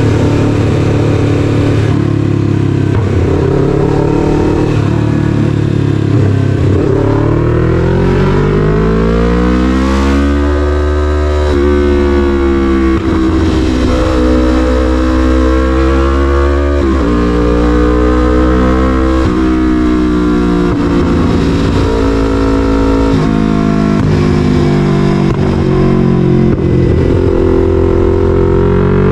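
Yamaha MT-03's 321 cc parallel-twin engine through an SC-Project full CRT aftermarket exhaust, loud as the bike is ridden through town. The revs climb and drop several times as it accelerates and shifts gears.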